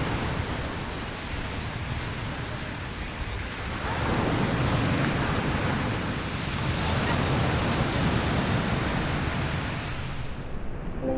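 Ocean surf washing onto a beach: a steady rush of noise that swells about four seconds in and again a few seconds later.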